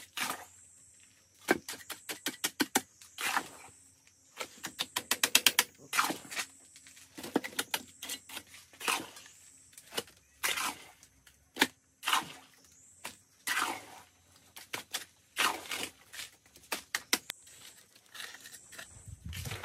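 Irregular sharp knocks and taps, with a quick run of rapid light taps about five seconds in.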